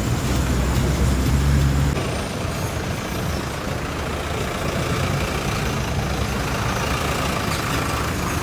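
Road traffic: a heavy vehicle's engine rumbling close by for about the first two seconds, then dropping away to steady traffic noise.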